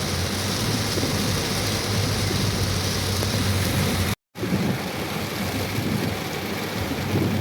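Heavy rain, a dense steady hiss with a low steady hum under it. The sound drops out for a moment about four seconds in.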